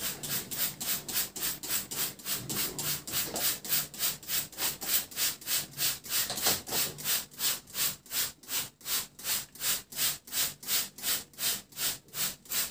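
Plastic trigger spray bottle squirting plain water onto a sponge cake layer in quick repeated pumps, about three or four hissy sprays a second.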